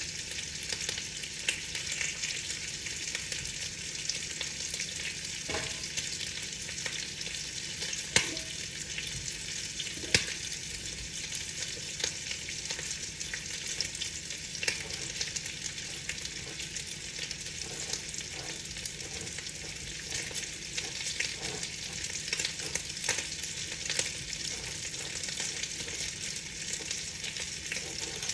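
Steady rain pattering on window glass: a constant hiss dotted with many small drop ticks. Two louder taps come about two seconds apart near the middle.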